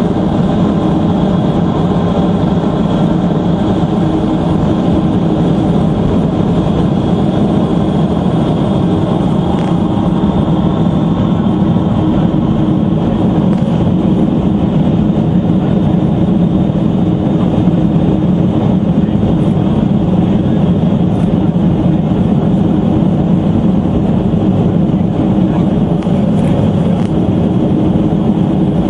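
Boeing 707's four jet engines at takeoff power, heard inside the cabin as a loud, steady drone with a few humming tones, through the end of the takeoff roll and the initial climb.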